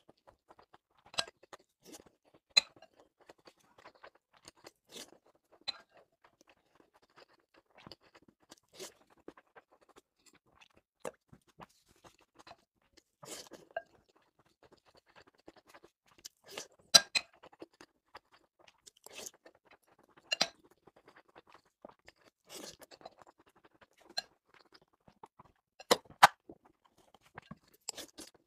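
Close-up eating sounds: a person chewing mouthfuls of rice with scrambled egg, snow peas and sliced sausage, with irregular wet chewing and crunching and sharp clicks of the spoon scooping against the bowl. The loudest clicks come about 17 and 26 seconds in.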